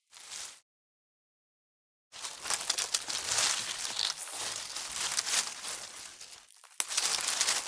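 Dry twigs being snapped and broken, a dense run of crackling with many sharp little cracks. The crackles come in bursts with dead silence between, and a single sharp snap near the end starts the last burst.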